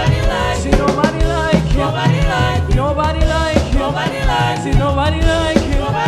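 Live gospel praise band playing an upbeat medley, with a steady drum-kit beat under singing voices.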